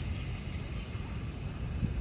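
Steady heavy rain with wind rumbling against the microphone, a constant low rumble under an even hiss.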